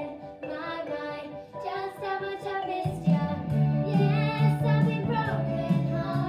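Two young girls singing a song together with instrumental accompaniment; a low bass part comes in about three seconds in.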